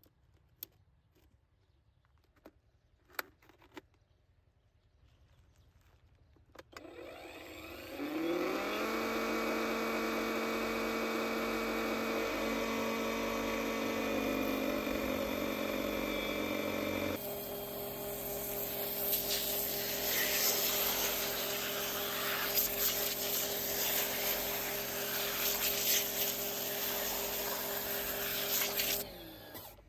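Pressure washer converted to run on a Milwaukee M18 battery. After a few clicks its motor starts about seven seconds in, whines up in pitch and settles into a steady hum. Around seventeen seconds the pitch drops and a loud hiss joins it, typical of the pump working under load while spraying, and the motor stops suddenly near the end.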